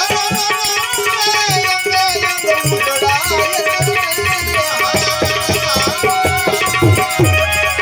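Instrumental interlude of a Gujarati santvani devotional folk song: a lead melody with sliding, wavering notes over a steady tabla rhythm, the bass drum's strokes bending in pitch.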